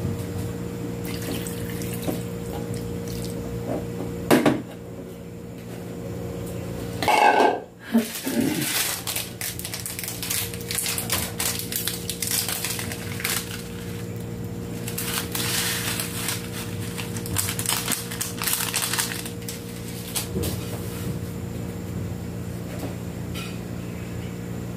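Pot of broth simmering on a gas burner: irregular bubbling over a steady low hum. A sharp knock comes about four seconds in, and a louder, brief sound with a sliding pitch a few seconds later.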